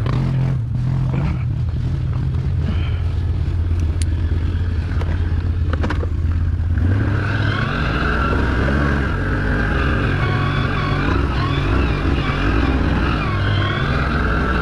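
Can-Am ATV engine running steadily under way, with a higher whine joining about seven seconds in.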